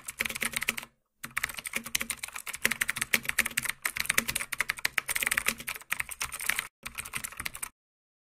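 Computer keyboard typing sound effect: rapid runs of key clicks, broken by short pauses about one, four and seven seconds in, stopping just before the end.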